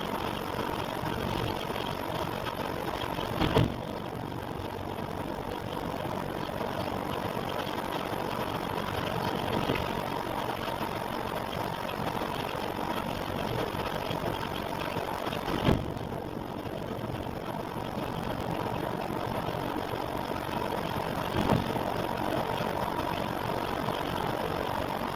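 An engine running steadily, with a faint steady whine and three brief knocks spaced well apart. It is recorded to show an abnormal noise.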